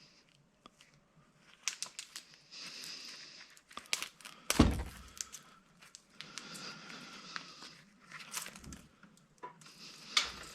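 Handling noise from a drill-driven Stripmaster wire stripper being set up on copper wire: clicks, knocks and crinkling of the wire's plastic insulation, two short stretches of faint steady whirring, and one loud thunk about four and a half seconds in.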